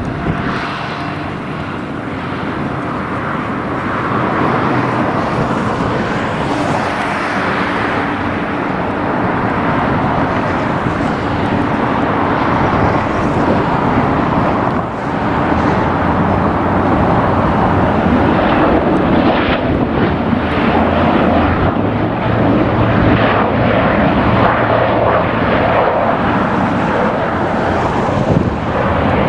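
Jet airliner coming in to land, its engine noise building over the first few seconds and then holding steady.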